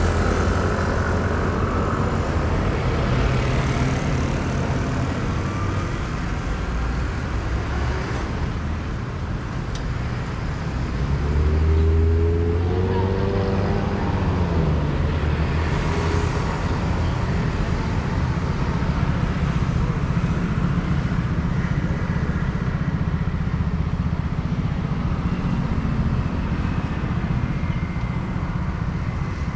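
Street traffic: a steady wash of cars and motor scooters going by. About twelve seconds in, one vehicle passes close, louder, its engine note falling as it goes by.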